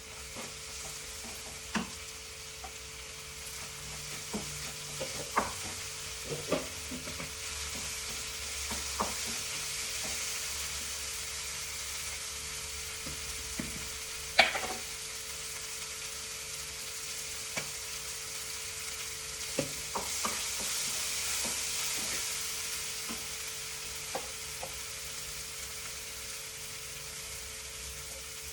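Food sizzling in a frying pan while it is stirred, with a steady hiss that swells now and then and a spatula knocking and scraping against the pan every few seconds. A faint steady hum runs underneath.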